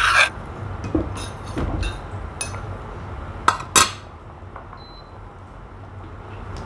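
A utensil clinking and scraping against a clay mortar as thick curry paste is scooped out, with two sharp clinks about three and a half seconds in. A short faint beep sounds about a second later.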